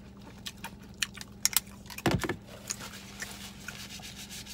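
Close-up eating sounds: quick wet mouth clicks and smacks while chewing a burger, with one louder thump about two seconds in and soft rustling near the end.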